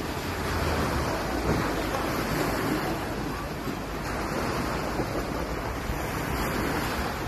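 Small waves washing onto a sandy beach, with wind blowing on the microphone as a steady rushing noise and low rumble.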